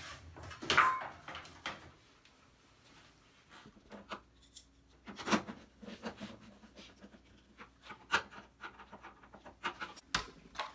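Handling sounds from the plastic housing of a front-load washer: a sharp plastic click about a second in, then after a quiet stretch, scattered taps, scrapes and clicks as a screwdriver works inside the empty detergent dispenser opening, with a sharp knock near the end.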